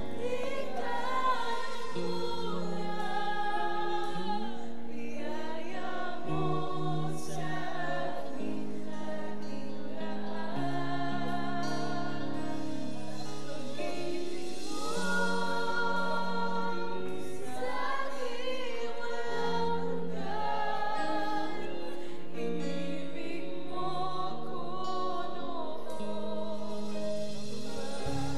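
Youth choir of young women singing a Tagalog worship song in long, held notes, with a female lead at the microphone, over a steady instrumental accompaniment.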